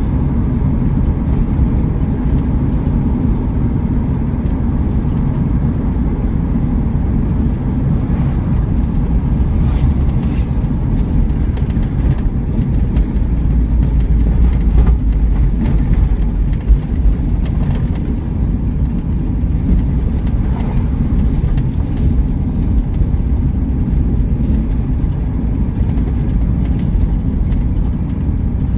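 Car driving on a paved highway, heard from inside the cabin: a steady low engine and tyre rumble with a few light clicks, the rumble swelling briefly about halfway through.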